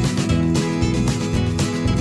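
Background music with strummed guitar and a steady beat of about two strokes a second.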